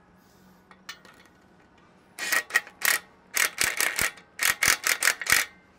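Cordless impact driver with a deep socket hammering in a string of short bursts, starting about two seconds in, as it quickly snugs a nut onto a carriage bolt through a rubber bumper pad. It is run fast so the carriage bolt does not spin in its hole.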